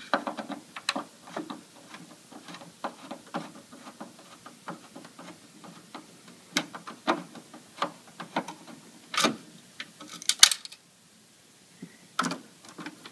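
Screwdriver turning a screw out of the plastic piece on an iMac G3's rear housing: a long run of small irregular clicks and scrapes, with a few louder clicks near the end.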